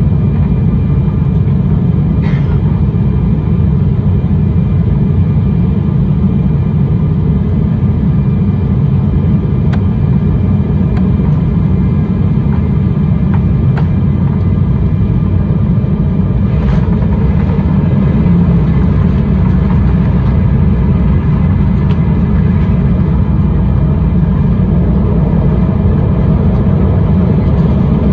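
Steady low rumble inside the cabin of an Embraer 195 airliner, its engines and airflow running through final approach and onto the runway.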